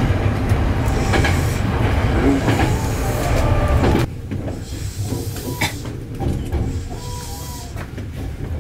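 Train running with a loud, low rumble; about four seconds in the sound drops suddenly to a quieter hum.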